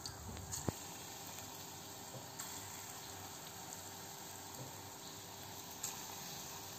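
Urad dal pakora batter deep-frying in hot oil in a pan: a steady sizzle as more batter is dropped in by hand, with a couple of small ticks.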